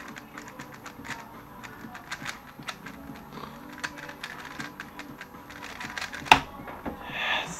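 Rapid plastic clicking and clacking of a 3x3 speed cube being turned fast during a timed solve. About six seconds in there is one much louder sharp knock as the solve ends and the timer is stopped.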